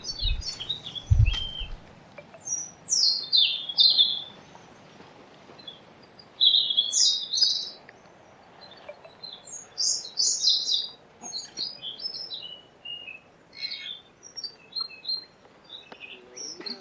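Birds chirping and twittering in repeated short bursts of high, falling notes, with gaps in between. There are a few low thumps in the first two seconds.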